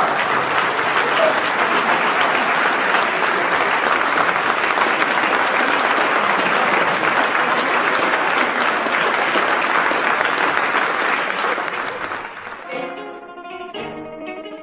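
An audience applauding steadily after a tango song. About twelve and a half seconds in, the clapping cuts off and gives way to quieter plucked string music.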